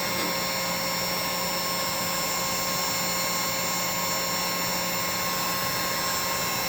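Heat gun running steadily on its low setting: an even fan-motor whir with a constant hum and whine.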